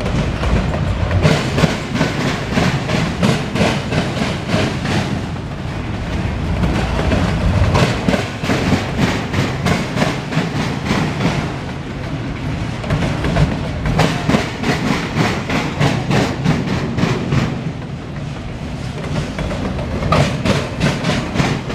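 CSX autorack freight train rolling past, its car wheels clicking over rail joints in repeated clusters over a steady low rumble.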